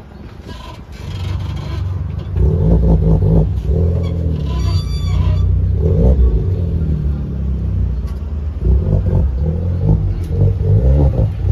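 Volkswagen Polo TSI petrol engine and exhaust running at low revs while the car manoeuvres at walking pace, the revs and loudness rising and falling with light throttle.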